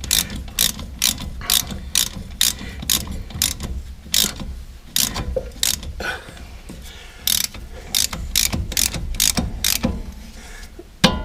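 Hand ratchet wrench clicking about twice a second as it tightens a brake caliper bolt, with a short pause about halfway through before the clicking resumes.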